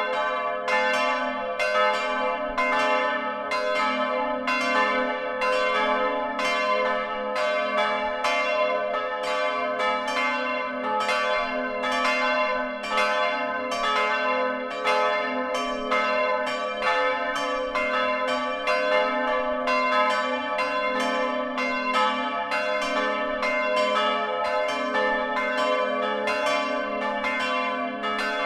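Peal of swinging church bells heard close up in the bell tower. The clappers strike about twice a second in a steady pattern, and the ringing tones of the bells overlap and hang on between strikes.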